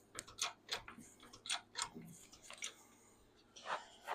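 Faint, irregular metallic clicks, about a dozen over four seconds, from a 20-ton hydraulic bottle jack being pumped to press a seized wheel hub off its axle shaft.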